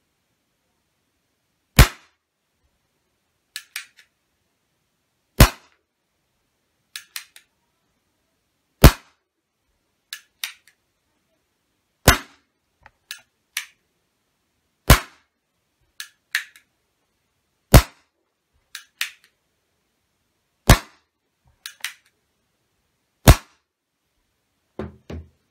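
Schofield CO2 airsoft revolver firing eight single shots through a chronograph, sharp cracks about three seconds apart. Between the shots comes a quieter double click as the single-action hammer is cocked and the cylinder turns. A few low thumps of handling come near the end.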